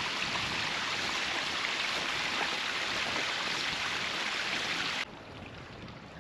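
Running water of a stream: a steady rush that cuts off abruptly about five seconds in, leaving a quieter hiss.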